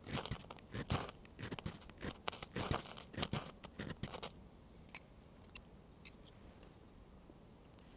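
Ferro rod scraped hard with a striker in quick, uneven strokes, throwing sparks into tinder to light a fire. The strokes stop about four seconds in as the tinder catches, leaving a few faint ticks and crackles.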